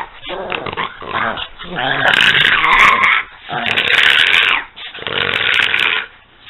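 A pug and a French bulldog play-fighting, growling in rough bursts, with three long loud stretches of about a second each in the second half.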